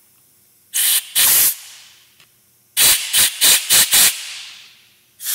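Compressed-air blow gun blasting air through the small holes of a spray gun's brass fluid nozzle to clear them, in short hissing bursts: two about a second in, then five quick ones about three seconds in.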